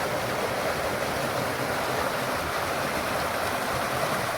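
A steady, even rushing noise with no distinct events, such as running water or wind outdoors.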